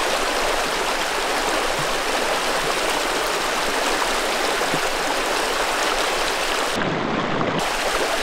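Small woodland stream running over riffles: a steady rush of water.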